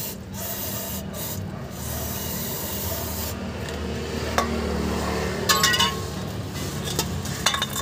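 Aerosol spray cleaner hissing onto the fuel filter housing for about three seconds, then a rag rubbing and wiping the metal, with a few light clicks and scrapes. A steady low hum runs underneath.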